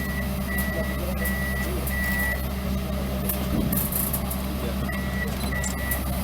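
Komatsu PC200-8 amphibious excavator's diesel engine running steadily, with its travel alarm beeping about three times every two seconds. The beeping stops for a couple of seconds midway, then starts again near the end.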